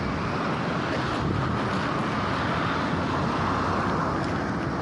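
Steady outdoor background noise: a low rumble of road traffic and wind on the microphone.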